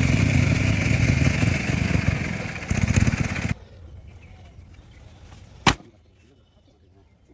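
Loud machinery running with a dense rattle, cutting off suddenly about halfway through; a single sharp knock follows in the quieter background.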